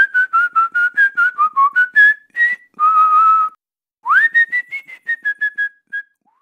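A person whistling a tune through pursed lips. It goes in quick short notes with a longer held note about three seconds in, then a brief pause, then a second phrase that opens with an upward swoop and runs on in short notes.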